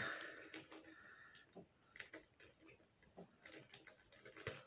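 Near silence with faint, scattered small ticks and light rustles of things being handled.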